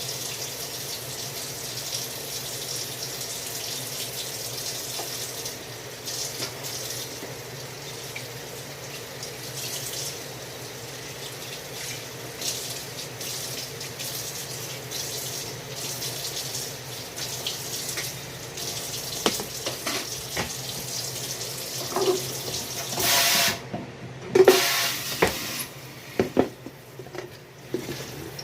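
Water running steadily from a tap into a sink, with a louder rush that cuts off abruptly about three-quarters of the way through, followed by a few sharp knocks and clinks.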